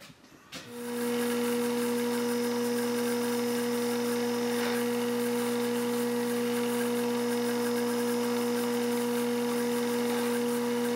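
Bridgeport milling machine's spindle starting up about half a second in, then running at constant speed with a steady pitched hum.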